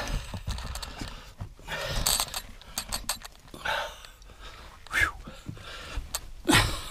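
A person breathing hard, with four loud breaths spaced a second or two apart, while scrambling over loose earth and rubble, feet and clothing scuffing and small stones knocking.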